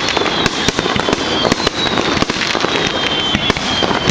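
Fireworks going off in dense, rapid crackling pops, with a thin high whistle slowly falling in pitch.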